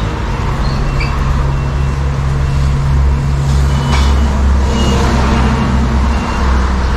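Motor vehicle engine running steadily with a low rumble, with a few brief high chirps over it.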